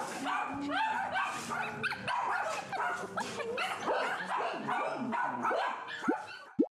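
Several small dogs barking and yipping over one another, the calls overlapping densely and fading out near the end. Just before the end, a short loud rising 'plop' sound effect.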